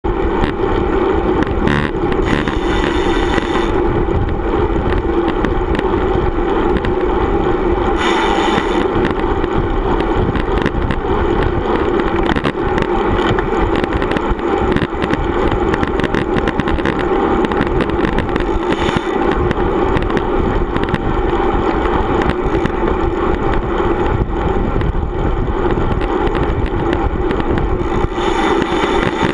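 Steady wind rush and road noise on a bicycle-mounted action camera while riding, with a few short higher-pitched buzzes.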